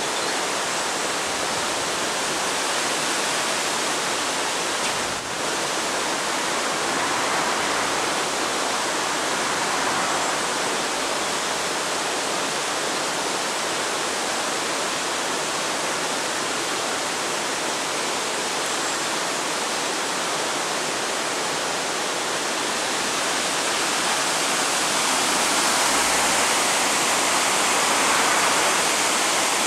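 Steady rushing of flowing water, an even hiss without pause, growing slightly louder near the end.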